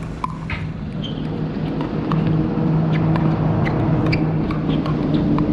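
Pickleball paddles hitting the plastic ball: sharp pops at uneven spacing, with a few short shoe squeaks. Under them runs a steady low hum that grows louder about two seconds in.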